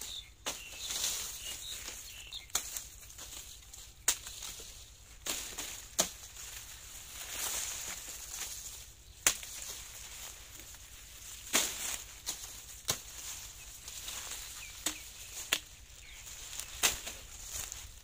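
Machete chopping sugarcane stalks, with sharp, irregular strikes every second or two, over a rustle of dry cane leaves.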